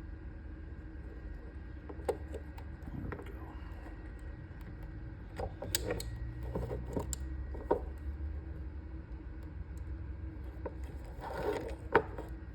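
Hand crimping tool and small wire connector being handled and crimped: scattered sharp clicks and handling noises, with a cluster and the loudest snap near the end, over a steady low hum.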